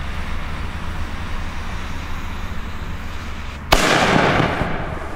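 A lit fuse hisses steadily, then about three and a half seconds in a 50 mm fire pot (ground mine firework) goes off with a sudden loud bang. A hiss follows that fades over about a second as it throws up its column of sparks.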